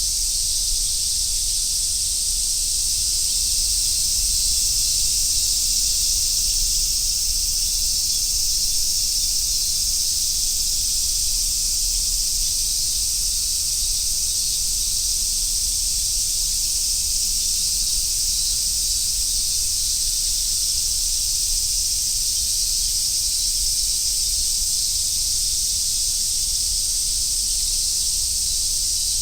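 Summer cicadas chorusing: a dense, steady high-pitched hiss that holds unchanged, with a faint low rumble underneath.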